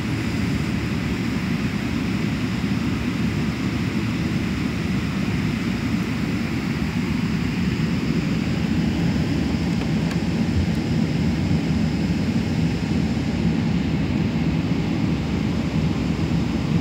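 Boeing 777-300ER jet airliner noise: a steady, even rushing drone with no change in level.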